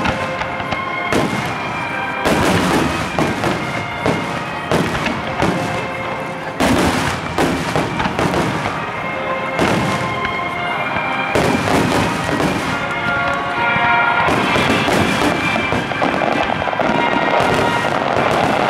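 Aerial fireworks shells bursting one after another, booms with crackle, while music plays alongside, heard through a camcorder's built-in microphone. From about three-quarters of the way through, the bursts merge into a dense, continuous crackling.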